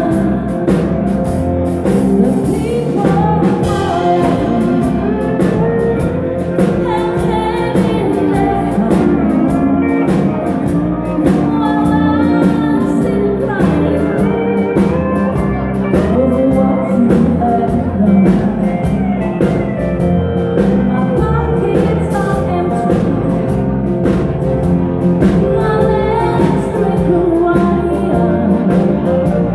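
Live band playing a song, with a singer over a steady drum beat and instruments.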